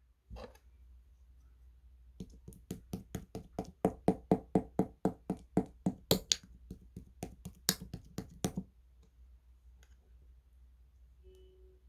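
Slime being squeezed and worked by hand, giving off a rapid run of sharp clicking pops, about four a second, that lasts several seconds.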